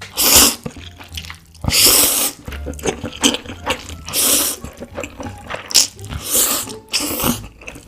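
Spicy instant noodles being slurped in a series of loud, short slurps, the longest ones about every two seconds.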